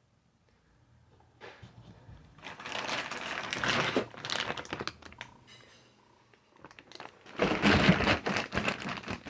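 Packaging being handled and crinkled: rustling and crackling in two spells, the second shorter and louder.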